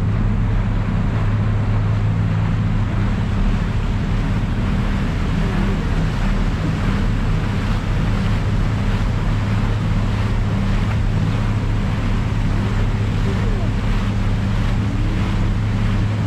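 Garinko-go II sightseeing ship's engine running with a steady low hum, over the wash of its wake churning through loose drift ice.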